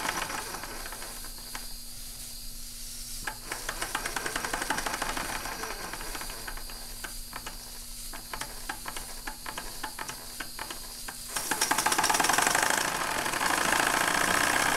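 Bing model 130/275 live-steam toy engine and boiler with the steam turned down at the valve: a quieter hiss with a run of clicks. About eleven seconds in the steam is opened again and it returns to a loud steady hissing run.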